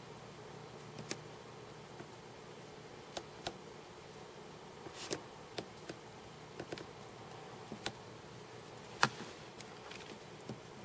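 Faint steady low hum with a scatter of short sharp clicks at irregular intervals, the loudest about nine seconds in.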